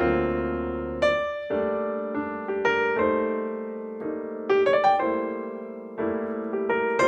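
Background piano music: notes and chords struck about once a second and left to ring and fade.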